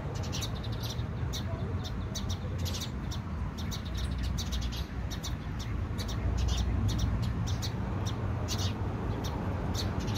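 Birds chirping: many short, high calls in quick irregular succession, over a low steady rumble.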